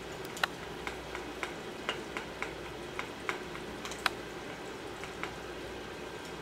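Wooden chopsticks clicking and tapping against white ceramic bowls while stirring and picking up sticky sago starch: about a dozen irregular sharp clicks, two of them louder, over a steady low room hum.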